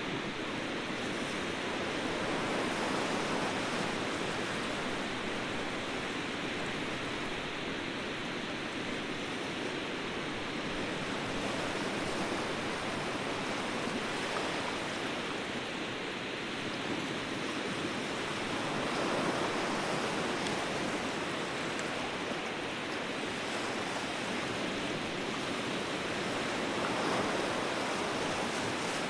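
Ocean waves washing in: a steady rushing of surf that swells gently every several seconds.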